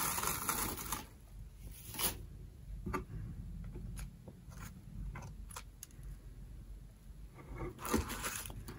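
Shredded paper packing filler rustling and crackling as it is lifted out of a box, then scattered light paper rustles and small taps as a paper envelope inside is handled, with another burst of rustling near the end.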